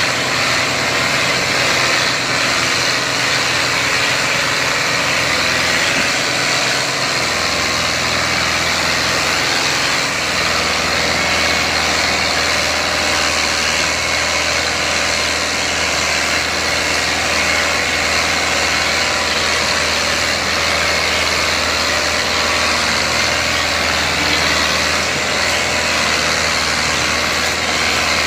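Diesel engines of two tractors, an 85 hp four-cylinder New Holland Dabung 85 and a three-cylinder Ford 4610, running steadily under heavy load as they pull a fully loaded sugarcane trolley.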